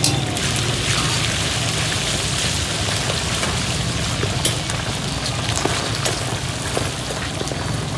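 Battered chicken skin deep-frying in a large wok of hot oil: a loud, dense sizzle and crackle of bubbling oil that swells just after it begins as a fresh batch is tipped in, with a wire skimmer stirring through it.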